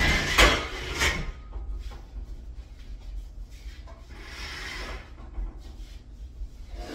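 Dining table and bench being dragged across the floor. Two loud scrapes come in the first second, and a longer scrape about four seconds in.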